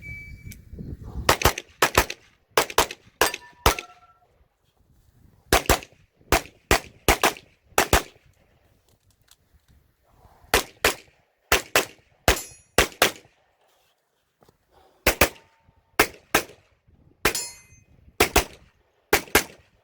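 A shot timer beeps once, then a pistol fires about twenty shots, mostly in fast pairs, in four strings with short pauses between them. A few shots are followed by a brief metallic ring, typical of hits on steel targets.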